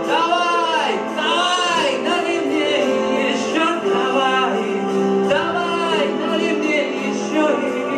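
A song playing: a male voice singing with a sustained instrumental accompaniment.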